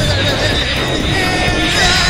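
Loud, busy background music of a cartoon soundtrack.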